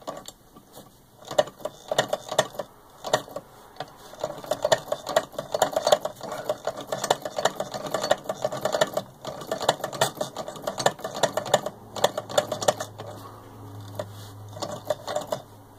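Shaw & Clark fat-pillar hand-crank chain stitch sewing machine, 1865 patent, running as its handwheel is turned by hand: a rapid mechanical clicking clatter from the needle bar and chain-stitch mechanism stitching fabric. There are a couple of short pauses, and it quietens near the end.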